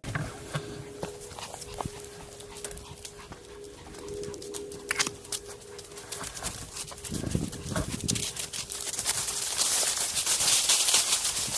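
Maltese dog sounds mixed with clicking footfalls; a hissing rush swells over the last few seconds.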